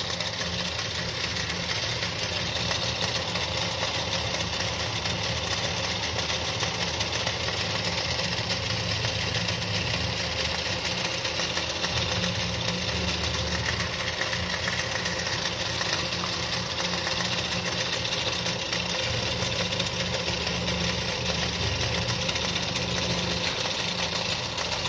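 Wilesco D141 toy live-steam engine running steadily under pressure, driving its overhead line shaft and belt-driven workshop models in a continuous, even mechanical whirr and clatter.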